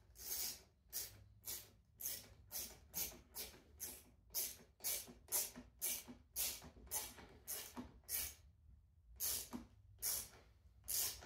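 A hand tool worked in quick strokes: short rasping bursts repeated about two and a half times a second, with a brief pause about nine seconds in.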